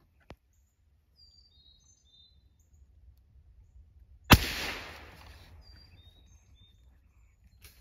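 A single rifle shot about four seconds in, sharp and loud, trailing off over about a second. Faint short bird chirps come before and after it.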